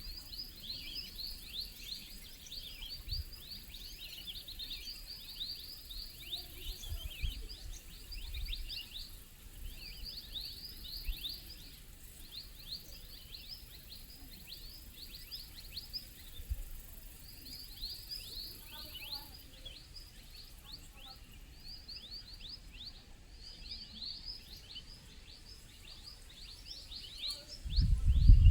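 A dense chorus of forest birds chirping, with many rapid short falling notes overlapping almost without pause. Now and then there are low thumps on the microphone, and near the end comes a loud low rumble.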